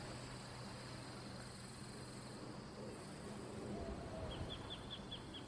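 Faint outdoor insect ambience: crickets chirping steadily, with a quick run of about six short high chirps about four seconds in.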